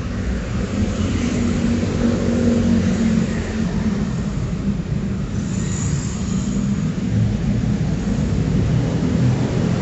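Street traffic on a wet city road: a steady low rumble of vehicle engines.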